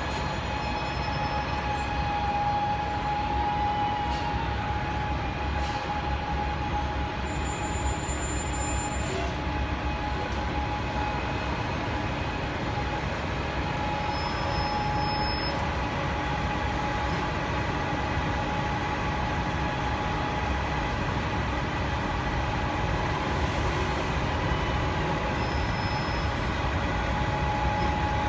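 Steady city street noise of buses and traffic on a wet road, with a city bus's engine running at the curb and a constant high whine running through it.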